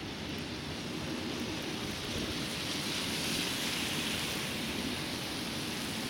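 Steady rushing noise of a snowstorm outdoors, with a low rumble under it. A hissing swell builds about two seconds in, peaks around three to four seconds, then eases off.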